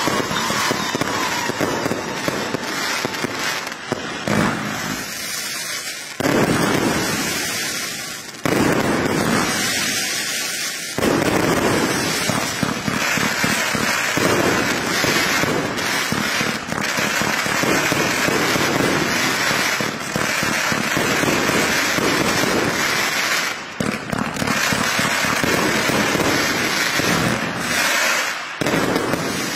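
Mei Feng 208-shot fireworks cake firing shot after shot in a dense, near-continuous barrage. Short lulls are broken by sudden louder volleys about 6, 8 and 11 seconds in, and the barrage tails off at the very end.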